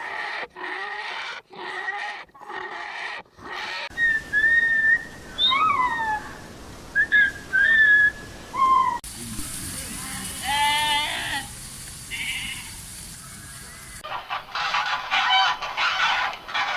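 Farm animal calls in a run of short clips cut hard one after another: first a choppy, gapped stretch; then about four seconds in, a series of short whistled calls gliding up and down; then, near the middle, a single wavering, bleat-like call; and near the end a dense, busy patch of sound.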